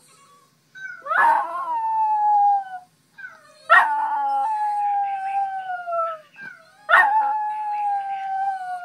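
West Highland White Terrier howling: three long howls, each with a sharp start and then a slow slide down in pitch, about three seconds apart.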